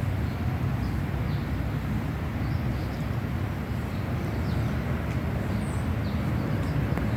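Outdoor background: a steady low rumble with a few faint, brief high chirps.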